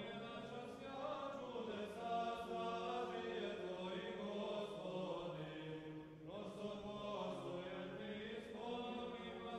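Faint background music: slow vocal chant with long held notes, a new phrase beginning about six seconds in.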